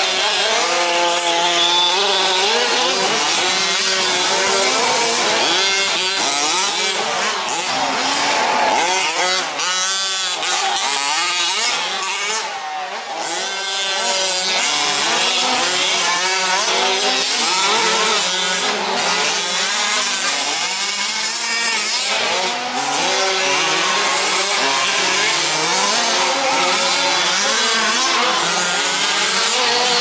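Several 1/5-scale 4WD remote-control race trucks' small two-stroke petrol engines, revving hard and easing off in turn so that their overlapping pitches keep rising and falling.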